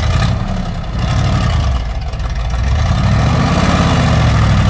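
Mitsubishi Fuso dump truck's diesel engine revving hard under load, the pitch climbing and easing twice, the second time longer, as the gravel-laden truck strains against wheels sunk in soft ground.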